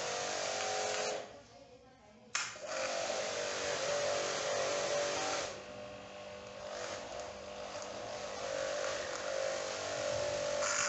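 StarQ ST W4 Pro electric pressure washer running, its motor and pump humming under the hiss of the spray jet. About a second in it stops for about a second, then starts again abruptly.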